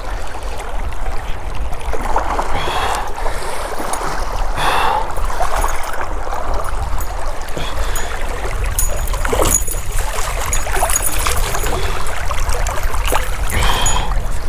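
Steady rush of river current around a wading angler, with a few brief splashes later on as a hooked smallmouth bass is brought in.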